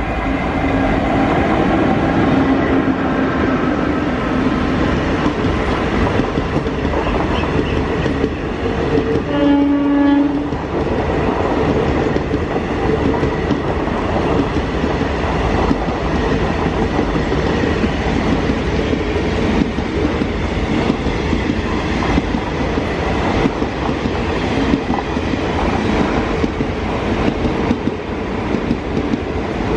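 Indian Railways passenger train running past: the electric locomotive's horn sounds at the start and again in a short blast about ten seconds in, then the coaches roll by with a steady rumble and clickety-clack of wheels over the rail joints.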